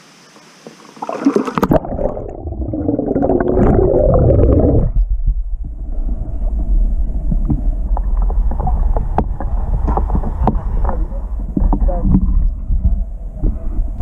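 Water sloshing and gurgling against a camera held at the water surface as a person wades through a pool, starting suddenly about a second and a half in. After about five seconds it settles into a heavy low rumble with many small knocks of water and handling on the camera.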